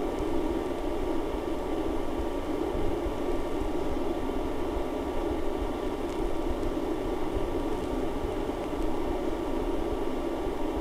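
Steady mechanical hum with a band of whooshing noise, like a small machine or fan running, with a faint click about six seconds in.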